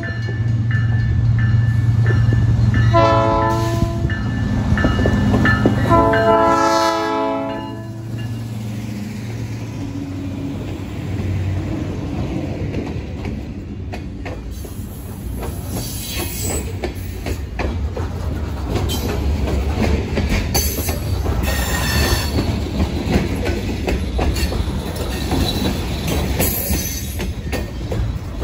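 Diesel freight locomotive passing close by, its engine running with a low drone as it sounds its air horn twice: a short blast about three seconds in and a longer one about six seconds in. Covered hopper cars then roll past with a steady clatter of wheels over the rails and occasional high wheel squeals.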